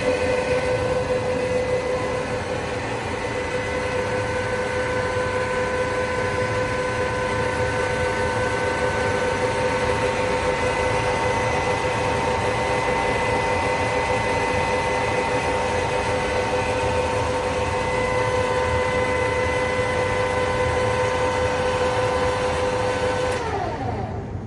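Keiyo-Seki KG-1000 gap bed lathe running under power, a steady whine from the spindle drive. About a second before the end it is switched off and the whine drops away in pitch as the spindle coasts down.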